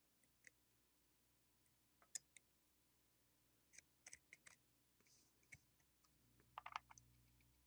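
Near silence with scattered faint clicks and light scratches from a soldering iron tip and fingers working on a circuit board while desoldering surface-mount parts. There is a quick cluster of clicks near the end.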